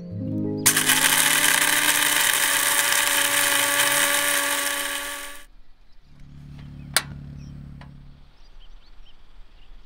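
A small motor whirring loudly and steadily for about five seconds, then stopping. A lower hum follows for about two seconds, with one sharp click in the middle.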